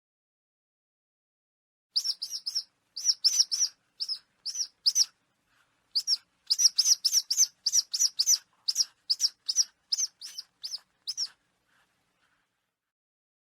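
A bird of prey calling: runs of short, high, sharp notes, about three a second, starting about two seconds in and stopping shortly after eleven seconds.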